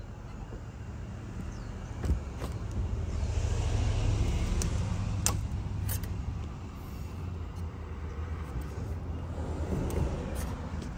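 A razor blade on a stick cutting through the urethane bead of a shattered windshield, with scraping and a few sharp clicks. A low rumble swells and fades in the middle.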